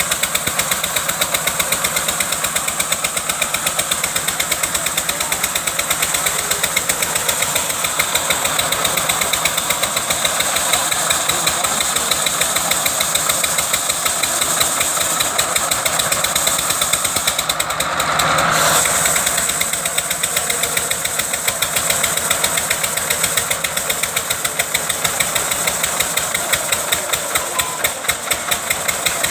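Engine-driven wood-cutting machine running steadily with a rapid, even pulsing beat, with a short louder, rougher swell about 18 seconds in.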